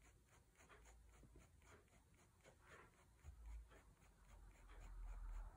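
Faint scratching of a Staedtler Pigment Liner 0.1 fineliner on paper: many short, quick pen strokes, several a second. A faint low rumble comes in over the second half.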